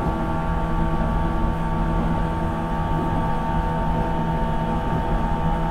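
Running sound of a 475-series express-type EMU, heard from the vestibule of motor car KuMoHa 475-42: a steady whine from the MT54 DC traction motors and the meshing 19:80 reduction gears over wheel-and-rail rumble, the train holding a steady speed.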